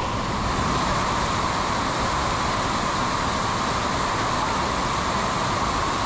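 Waterfall's water rushing steadily, an even unbroken noise.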